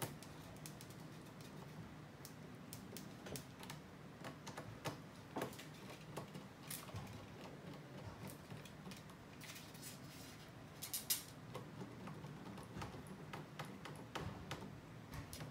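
Faint scattered clicks and scrapes from a small screwdriver working the screw terminals of a solar charge controller while wire ends are pushed in, with a short, louder cluster of clicks about eleven seconds in.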